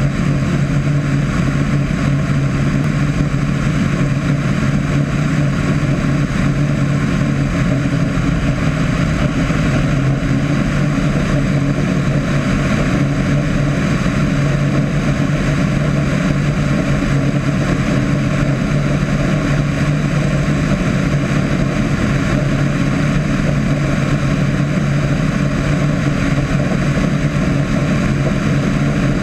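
Single-engine light airplane's piston engine and propeller droning steadily in flight, heard from a mount outside the cabin with wind rushing over the microphone.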